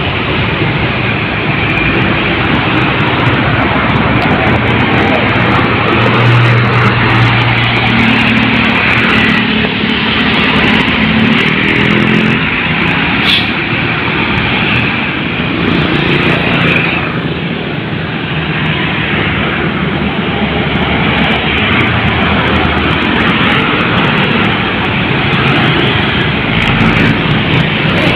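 Busy road traffic: a continuous stream of vehicles going past, with a deeper engine note standing out between about six and twelve seconds in.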